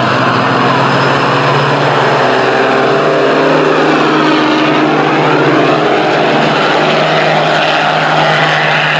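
Two loaded semi trucks' diesel engines running at full throttle side by side, pulling heavy trailers uphill in a drag race. The steady, loud drone sweeps in tone as the trucks pass close by about halfway through.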